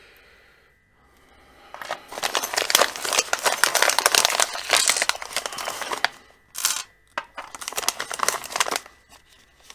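Plastic packaging crinkling as it is handled and torn open, with a dense crackling stretch in the middle and shorter rustles near the end.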